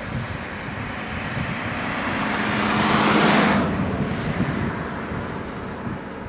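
A vehicle passing close by: a rushing noise with an engine hum swells to a peak about three seconds in, then falls away quickly.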